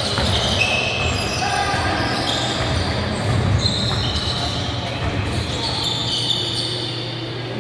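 Basketballs bouncing on a hardwood gym floor in a large echoing hall, with short high-pitched squeaks and voices in the background.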